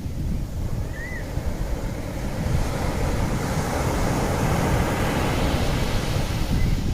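Sea waves washing onto a shore, with a wash swelling up about halfway through, over a low rumble of wind on the microphone.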